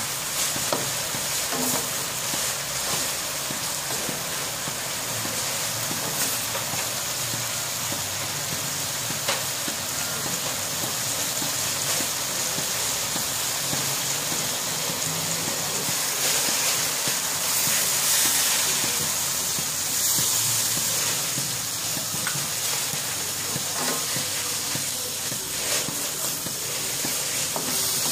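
Bitter gourd and roast pork sizzling steadily in a nonstick wok, with a wooden spatula stirring them now and then.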